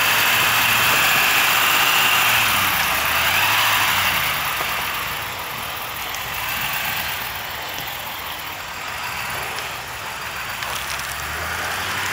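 Pickup truck engine revving under load, its pitch rising and falling, as it tows a stuck Ford Bronco out on a recovery strap. Loudest in the first four seconds, then quieter.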